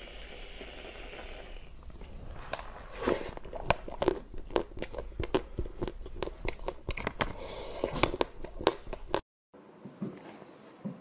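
Aerosol whipped-cream can hissing briefly as cream is sprayed, then a quick run of crisp crunches and clicks from biting and chewing a hard candy held close to the microphone. The crunching cuts off suddenly about nine seconds in.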